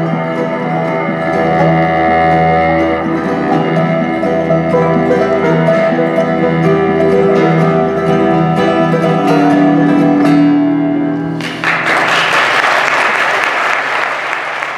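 Bluegrass band of mandolin, banjo, upright bass and acoustic guitars playing the last bars of a song, ending on a held final chord about eleven seconds in. Audience applause breaks out right after and continues.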